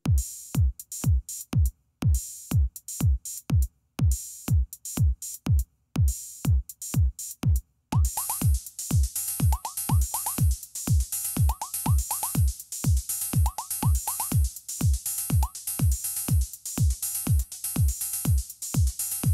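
Drum-machine techno beat: a deep four-on-the-floor kick drum, about two a second, each hit dropping in pitch, with crisp hi-hat ticks. About eight seconds in, a hissing high cymbal layer, a low bass line and short repeating synth blips join the groove.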